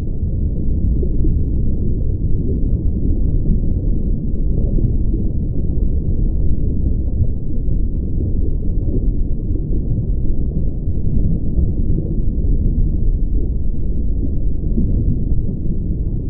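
A steady, deep rumble with no distinct events.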